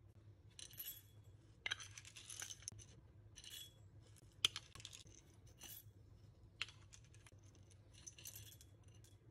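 Whole roasted coffee beans poured and then spooned into a small ceramic bowl, faintly rattling and clinking in several short bursts, with one sharp click about four and a half seconds in.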